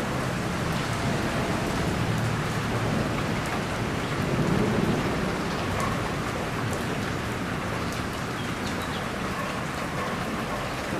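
Steady rain with a low rumble of thunder that swells about four seconds in.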